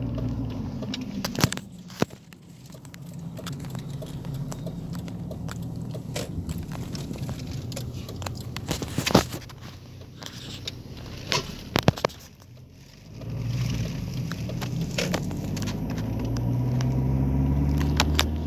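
Car engine and road hum heard from inside the cabin. It fades about two seconds in and swells back up about two-thirds of the way through. Sharp clicks and knocks from the phone being handled come through it.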